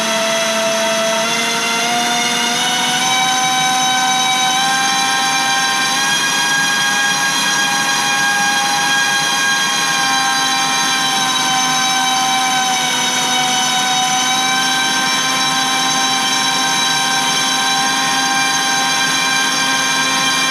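LDpower 2305 2600kv brushless FPV racing motor spinning a Crazy Pony 5052 propeller on a thrust test stand, a steady whine made of several pitched tones. It rises a little in pitch over the first few seconds, then holds at a steady part-throttle step, drawing about 6 amps.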